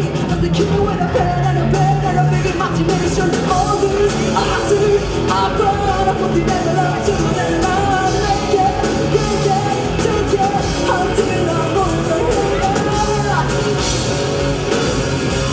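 A live alternative/nu metal band playing loud through a PA: distorted electric guitars, bass and drums, with a woman singing lead.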